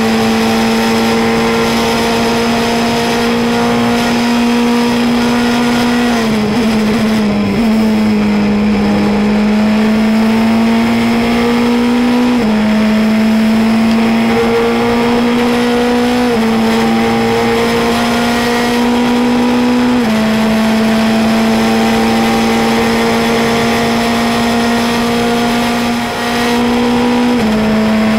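Formula Renault 2.0 race car's 2.0-litre four-cylinder engine heard onboard at high revs. The pitch drops and wavers as the car brakes and downshifts about six seconds in, then climbs through the gears under full throttle, with four upshifts, each a sudden step down in pitch.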